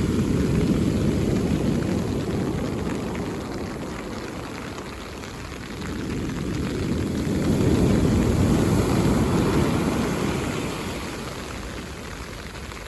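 Mediterranean sea waves breaking on the shore and washing back. It rises and falls in slow surges, loudest at the start and again about eight seconds in.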